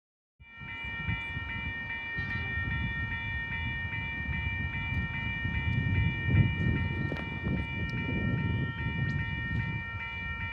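An 8-car Oscar electric multiple-unit train passing: a low rumble of wheels on the rails, with a steady, high-pitched whine held above it throughout. The sound cuts in suddenly just after the start.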